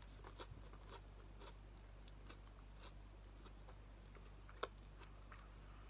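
Faint chewing of a mouthful of corn dog: a run of small mouth clicks, with one sharper click a little before the end, over a low steady hum.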